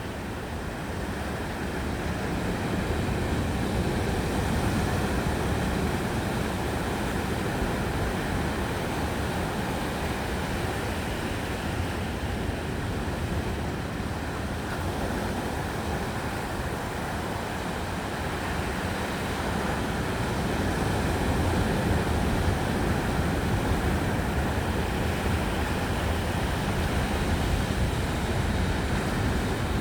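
Ocean surf washing on the beach, with wind on the microphone: a steady rush that swells slowly, louder a few seconds in and again past the middle.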